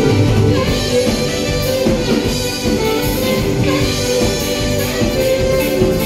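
Live band playing an instrumental passage: saxophone over electric guitar and drums.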